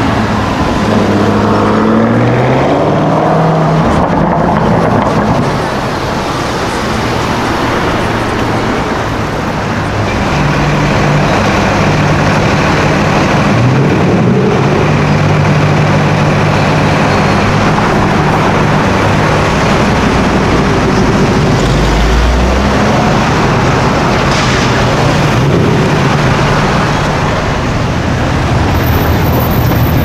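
Car engines in city traffic. A Lamborghini Urus's twin-turbo V8 pulls away with rising revs in the first few seconds, then a steady low engine note is held at low revs through the middle as a red Ford Mustang and traffic come past.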